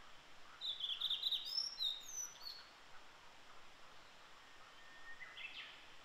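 Male blue-and-white flycatcher singing: a phrase of clear, high notes with quick slurs about a second in, lasting about two seconds, then a short rising phrase near the end.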